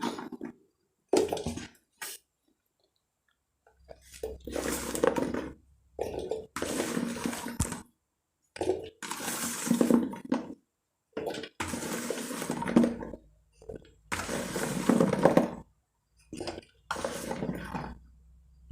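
Handfuls of black olives poured into a plastic container, about eight bursts of rattling and tumbling one after another with short pauses between them.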